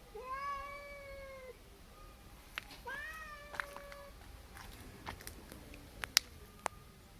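Female house cat giving two long, drawn-out threat yowls, each about a second long, aimed at a stray cat passing by. Several sharp clicks follow in the second half, the loudest near the end.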